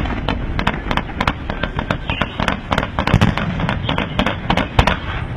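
Fireworks firing: fan-shaped volleys of comet shots launched from low positions, giving a rapid, irregular run of sharp bangs and pops, about five a second, with one louder bang near the end.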